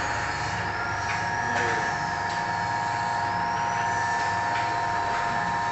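Center-seal sachet packing machine running steadily: a constant mechanical hum with several held whining tones, a faint high tone that slowly rises and falls, and a few short clicks.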